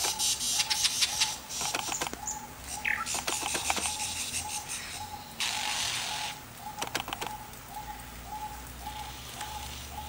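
Male superb lyrebird singing during its tail-fanned display: a rapid run of sharp clicks and varied mimicked sounds, including a loud rasping burst about halfway through, over a short note repeating about twice a second.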